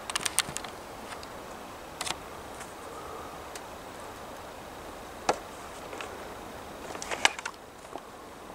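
Camera handling noise: a handful of sharp clicks and taps in small clusters, the loudest near the end, over a steady low hiss.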